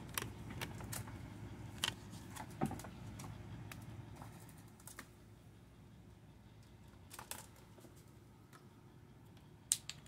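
Grey squirrels feeding at close range: scattered sharp clicks and taps, thick in the first few seconds, then sparse, with two louder clicks near the end.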